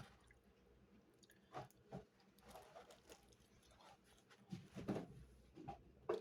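Faint chewing and biting on chicken wings: a few soft, scattered mouth sounds, most of them in the second half.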